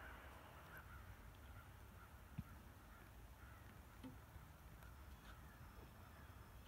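Faint outdoor quiet with distant bird calls repeating over a low rumble, and a single sharp click a little over two seconds in.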